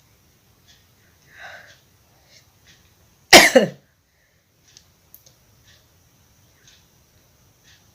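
A woman with a head cold coughs once, loudly, a little over three seconds in: a sudden burst of about half a second with a falling pitch.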